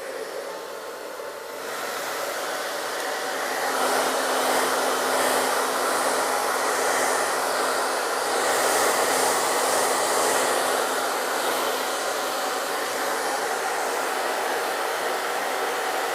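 Small handheld hair dryer blowing steadily, growing louder about two seconds in and holding steady after that.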